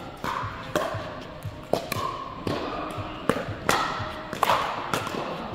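Pickleball paddles striking a plastic ball in a quick rally: a run of about seven sharp pocks, one every second or less, each ringing briefly.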